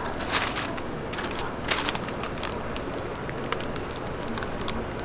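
Paper waffle sleeves rustling and crinkling as a waffle is wrapped, with two louder crackles, one about half a second in and one near two seconds in, and scattered small clicks over steady background noise.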